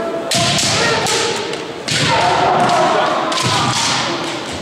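Kendo bout: bamboo shinai clacking against each other and against armour, and bare feet stamping on a wooden gym floor, several sharp impacts in all. Drawn-out shouted kiai from the fighters run between the strikes.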